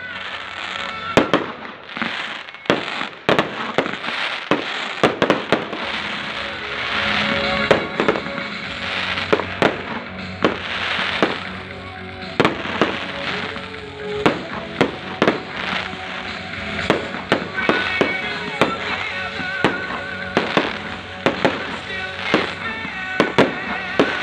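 Aerial fireworks display: shells bursting in quick, irregular succession, sharp bangs every second or so throughout, with music playing underneath.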